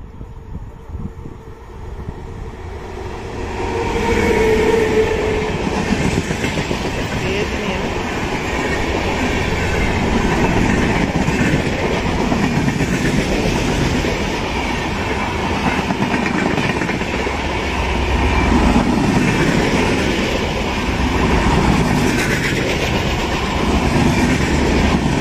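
Indian Railways passenger express rolling slowly past on the near track, its coach wheels running over the rails in a loud, steady rumble. The sound swells over the first few seconds as the train arrives, then holds level as the coaches go by.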